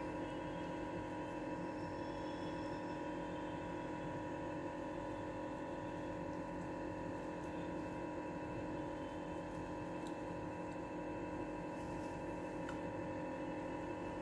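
Steady hum made of several constant tones, unchanging throughout, with a couple of faint ticks near the end.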